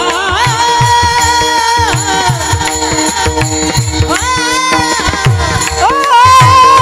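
A solo voice singing a Marathi devotional panchapadi in long, held notes that glide and bend, over a steady harmonium-like drone and regular hand-drum strokes. A new sung phrase starts louder near the end.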